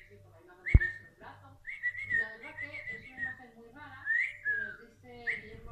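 Wire-haired dachshund whining in high, wavering tones: one long whine, then shorter rising-and-falling whines. There is a single sharp knock about a second in.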